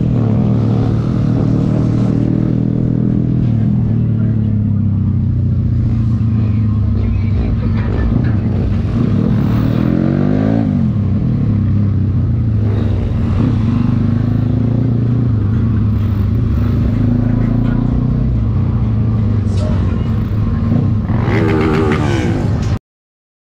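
Motorcycle engine running steadily while riding, with wind rumble on the microphone. The engine pitch dips and climbs about ten seconds in, and near the end a rising rev comes through before the sound cuts off suddenly.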